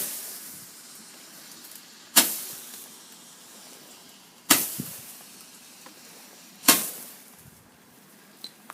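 Firework going off: four sharp bangs about two seconds apart, each fading out over about a second.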